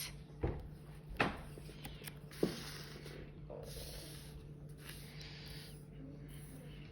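Someone writing on paper: a few light clicks, then a run of short scratchy pen strokes, over a steady low hum.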